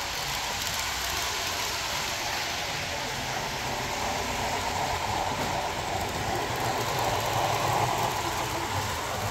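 An HO-scale Rivarossi Santa Fe Blue Goose model steam locomotive's DCC sound decoder playing steady steam running sound through its small onboard speaker. It grows louder about three quarters of the way through as the locomotive draws near.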